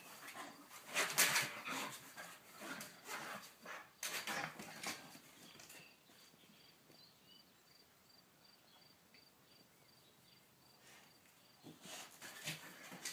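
Staffordshire terrier puppy playing: scattered short bursts of dog noises and scuffling, loudest about a second in, then a quiet stretch of several seconds before the bursts start again near the end.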